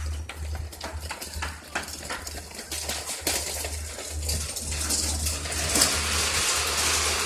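Sharp clicks and scuffs echoing in a concrete underpass, joined from about four seconds in by a rising hiss from a toy radio-controlled monster truck's electric motor and tyres on gritty asphalt as it drives closer.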